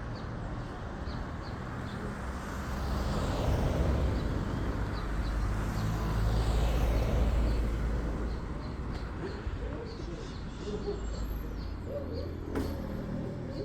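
Cessna 182P Skylane's six-cylinder piston engine and propeller droning, growing louder to a peak in the middle and then fading as the plane passes. Small birds chirp throughout, and a dove coos near the end.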